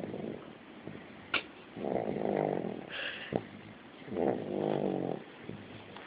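Snoring: a slow, regular rhythm of long snores about every two and a half seconds, two full snores plus the tail of one that has just begun, with a few faint clicks in the pauses.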